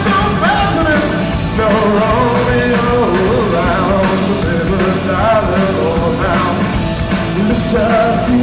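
Live rock band playing: a male singer sings into a microphone over electric guitar and the rest of the band, loud and continuous.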